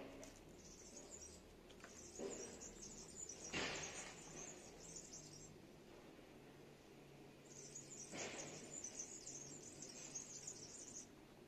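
Faint outdoor background with birds chirping in quick high twitters that come and go in stretches of a few seconds, and two brief soft rushes of noise.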